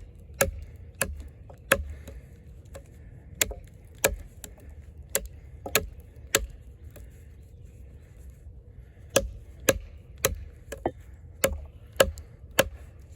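Eafengrow EF-143 camp knife's AUS-10 steel blade chopping into a log: sharp wooden strikes about two a second, in runs with a pause of a couple of seconds in the middle.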